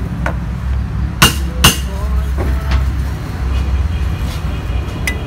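Sharp clicks and taps of a metal hand tool against the mould of a freshly cast cement pot stand, the two loudest about a second and a half in, with some faint metallic ringing later, over a steady low hum.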